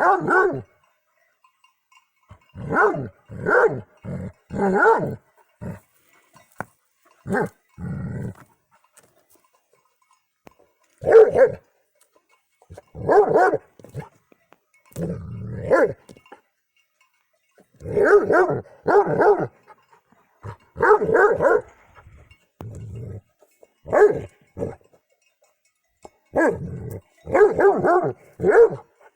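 Dog barking repeatedly, in single barks and runs of two to four, with pauses of up to a few seconds between.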